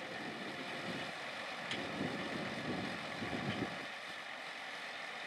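John Deere 8245R tractor running with a Claas triple disc mower mowing alfalfa: a steady, even running sound of engine and cutting discs.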